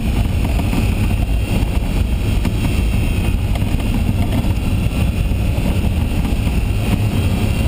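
Acura NSX's V6 engine running under load at speed, with tyre and wind noise, heard loud and steady from inside the car's cabin.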